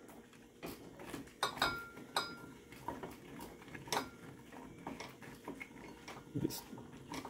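Cut okra pods being tossed by hand in a ceramic bowl to coat them in oil: scattered light clicks and knocks of pods and fingers against the bowl. A couple of the knocks, about one and a half to two seconds in, ring briefly.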